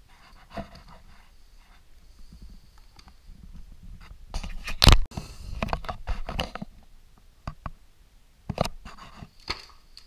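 Books being handled on a table: scraping and rubbing of covers and hands, a run of knocks with one loud knock about halfway through, then a few sharp taps near the end.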